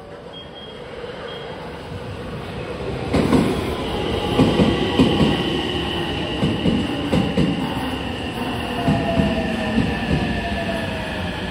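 JR West 225 series electric train pulling into the station and slowing. It comes in louder over the first few seconds, then the wheels clack over the rail joints and a whine slides down in pitch as it brakes.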